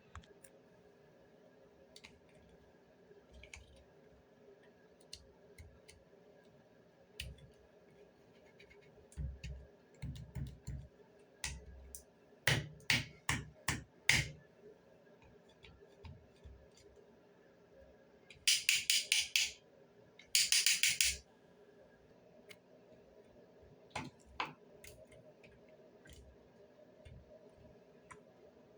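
Scattered small clicks and knocks, as of something being handled, with a few dull thuds and two short bursts of hiss, each about a second long, about two-thirds of the way in.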